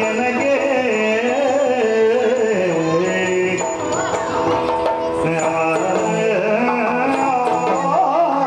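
Yakshagana background music: a male singer's melodic line over maddale drum strokes and a steady held drone.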